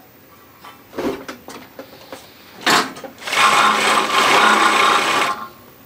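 Industrial chainstitch carpet binding machine (NC TPB with servo motor) running briefly, a steady sewing-machine run of about two seconds that stops shortly before the end. It is preceded by a few light clicks and a sharp clack from the tape and folder being handled.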